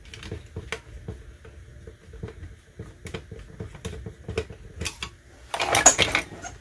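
Light clicks and ticks of small screws and hard plastic parts being handled as a plastic toy X-Wing is taken apart. A louder rattle of plastic comes about five and a half seconds in.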